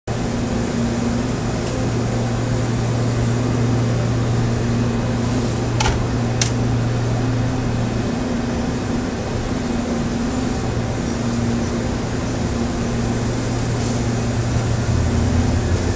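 Korail Line 1 electric multiple unit standing with its doors open, its onboard air-conditioning and auxiliary equipment humming steadily, with a low tone that comes and goes. Two sharp clicks about six seconds in.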